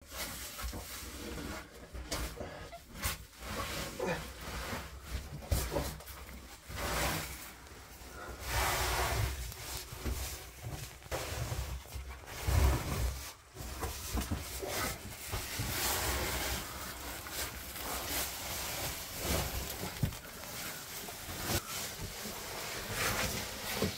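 A caver squeezing through a narrow rock passage: irregular scraping and rustling of his body and clothing dragging over the rock, with dull knocks and bumps, and breaths and grunts of effort.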